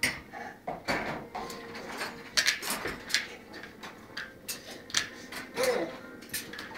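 Small plastic toys clicking and knocking together as a toddler handles them, in irregular taps throughout. A brief vocal sound comes about five and a half seconds in.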